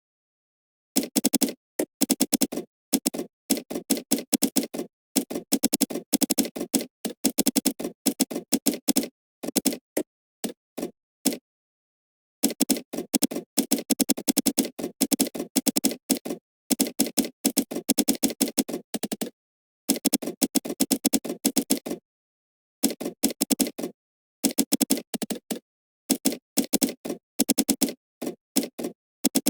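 Computer keyboard typing in quick bursts of rapid key clicks, broken by pauses of about a second of silence.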